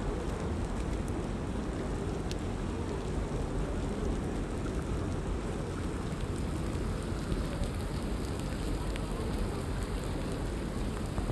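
Steady rain falling, an even hiss with a few sharper drop ticks standing out.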